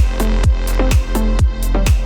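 Electronic dance-style background music with a steady kick-drum beat, about two beats a second.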